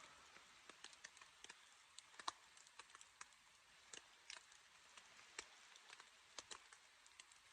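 Faint, irregular ticks and taps of water drops hitting the shelter's fabric, a few a second at uneven spacing, as the rain tails off.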